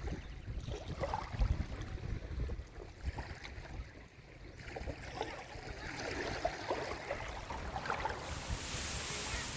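Sea waves washing onto the shore, with small splashes and lapping, swelling into a louder rush of surf near the end.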